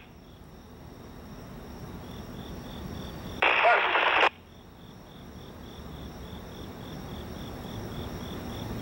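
Low rumble of an approaching pair of diesel Geep locomotives, growing steadily louder, under insects chirping about twice a second. A short burst of scanner radio chatter breaks in about three and a half seconds in.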